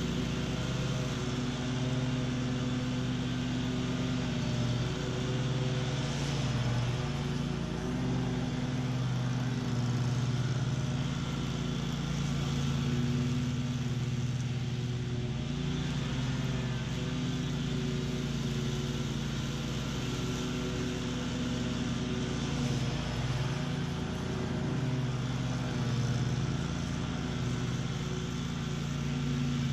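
Bob-Cat QuickCat 36-inch stand-on mower's engine running steadily at mowing speed, its blades cutting tall, thick weeds; the engine note dips and recovers slightly as it takes the load.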